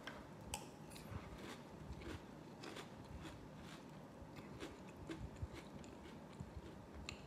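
A person chewing a mouthful of Cap'n Crunch Strong Berry sweetened oat-and-corn cereal in milk, with faint, irregular crunches about two or three a second.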